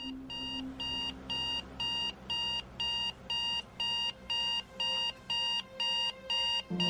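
Electronic alarm clock beeping: short, evenly spaced high beeps, about two a second. A low music note comes in near the end.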